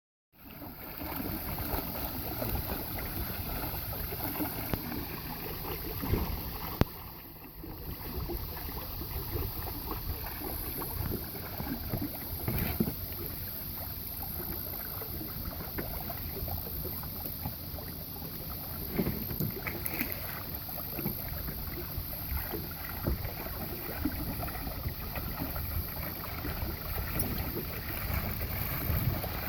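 Water splashing and rushing along a sailing kayak's hull, with wind on the microphone and a couple of sharp knocks.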